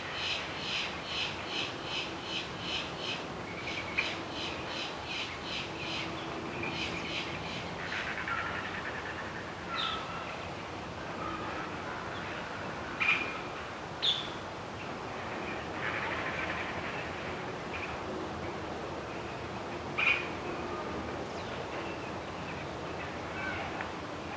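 Forest birds singing and calling: a quick run of repeated high chirps, nearly three a second, for the first six seconds or so, then scattered single calls, a few of them sharper and louder, over a faint steady background.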